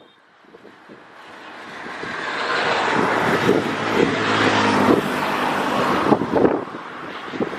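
A motor vehicle passing close by: its engine and tyre noise build up over a couple of seconds, stay loud, then fall away about six seconds in.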